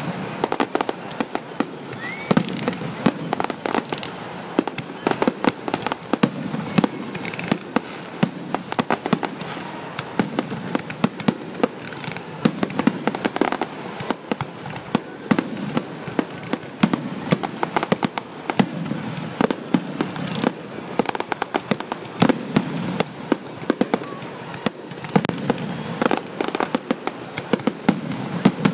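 Aerial fireworks finale: a continuous barrage of shell bursts, many sharp bangs a second over crackling, without a break.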